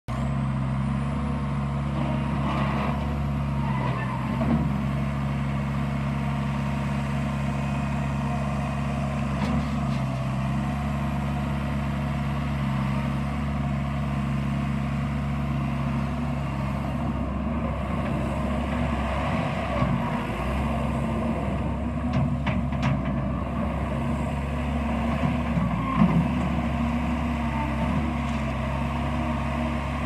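Gehl 7810E skid steer loader's turbocharged engine running steadily; after about 17 seconds its note wavers as the machine is driven and its bucket pushes into gravel. A few knocks come through over the engine.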